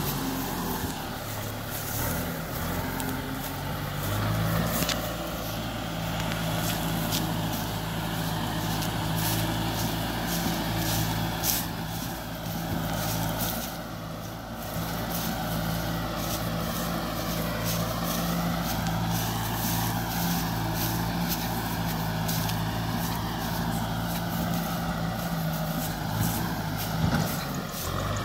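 Kubota M6040SU tractor's diesel engine running at a steady pitch as the tractor drives along.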